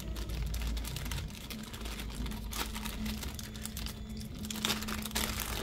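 Plastic zip bags of small parts crinkling and rustling as they are handled, with quick light clicks and taps.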